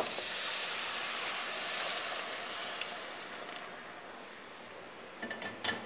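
Hot water poured into a pot of frying tomato, onion, garlic and colorau. It hisses loudly at first, and the sizzle dies away over a few seconds as the liquid fills the pot. A few light clicks come near the end.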